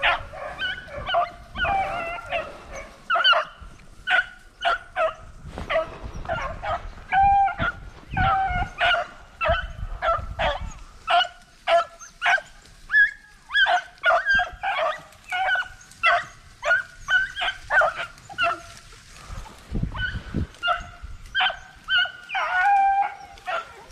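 Hunting hounds barking and yelping in a rapid, near-continuous string of short calls, with a brief lull about twenty seconds in.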